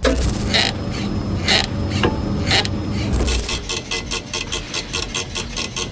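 4x4 pickup suspension noises: a rasping creak about once a second, then a fast, even rattle of about six clicks a second. These are sounds of a troubled suspension, typical of a setup that doesn't match the absorbers, springs and ride height.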